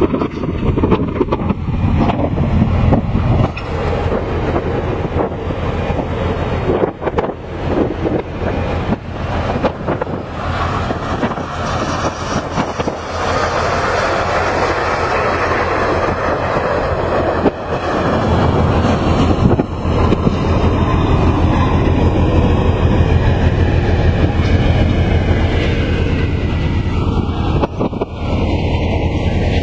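A heavy vehicle running with a continuous rumble, and frequent clanks and rattles throughout.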